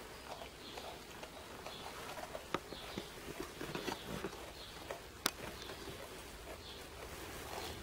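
Kangaroo joeys chewing grass stalks, a soft irregular crunching and clicking, mixed with rustling of their fabric pouches and hay. Two sharper clicks stand out, about two and a half and five seconds in.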